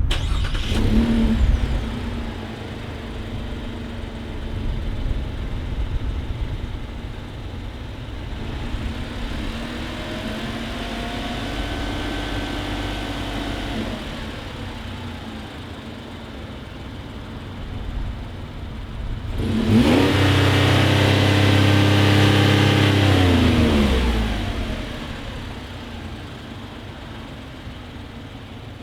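Chevy Colorado ZR2's 3.6L V6 running through a Flowmaster FlowFX cat-back exhaust with a straight-through muffler and dual tailpipes, being revved. There is a short blip about a second in, a slower rise and fall in pitch around the middle, then a loud rev held for about four seconds before it drops back to idle near the end.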